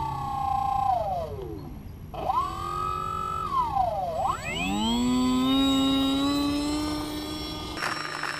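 Bixler 3 RC plane's electric motor and propeller whining with throttle changes. The pitch falls away over the first two seconds, jumps back up and holds, drops again around four seconds in, then climbs and settles steady. A rushing hiss comes in near the end.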